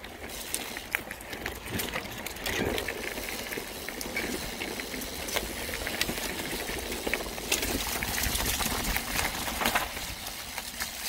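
Mountain bike rolling over a trail, picked up by a phone in a handlebar mount: a steady rolling noise and low rumble, with frequent clicks and rattles from the bike.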